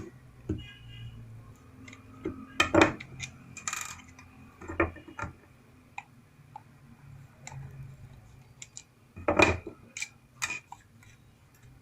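Scattered clicks, taps and knocks of a front-load washing machine's plastic drain pump housing being handled as its four screws are taken out to open it, with a few louder knocks.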